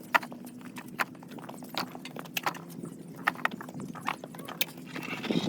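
Irregular sharp clacks of hard objects knocking, a few a second, over a low steady machine hum.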